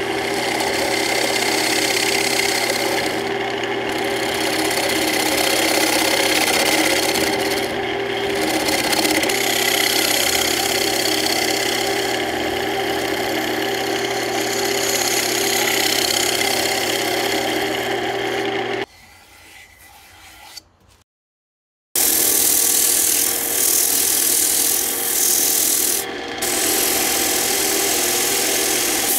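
Wood lathe running with a steady motor hum while a turning chisel scrapes and cuts into a spinning walnut plate blank. About two-thirds of the way through the sound drops away, and after a short break it comes back as sandpaper hissing against the spinning plate.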